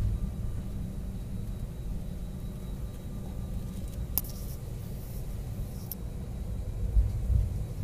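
Cabin noise of an Airbus A319 taxiing: a steady low rumble from the engines and the rolling airframe. Two faint clicks come about four and six seconds in, and a low thump comes near the end.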